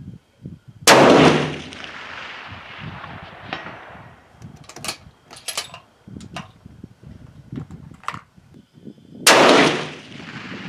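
Two shots from a Savage 10FP-LE bolt-action rifle in .308 Winchester, about eight seconds apart, each trailing a long echo. Between the shots come a few short sharp metallic clicks as the bolt is worked.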